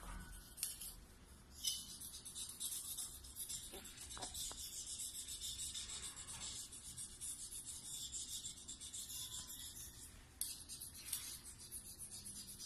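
Knife blade scraping across ceramic floor tiles in quick short strokes, a dry high scratching as specks are scraped off the tile surface. It starts about two seconds in and breaks off briefly near the ten-second mark before going on.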